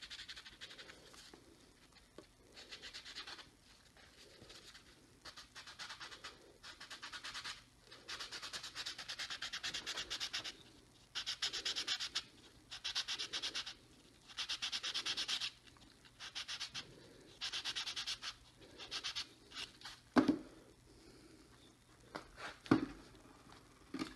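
Small turned wooden top being hand-sanded against a sanding block: runs of quick back-and-forth rasping strokes, one to two seconds each, with short pauses. Two sharp knocks near the end.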